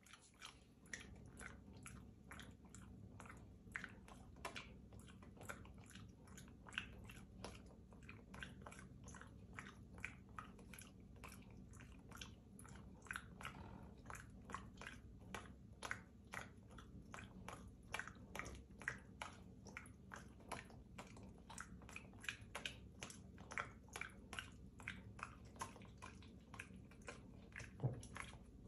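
Faint, crunchy chewing: short crisp crunches come irregularly, about two or three a second, all the way through.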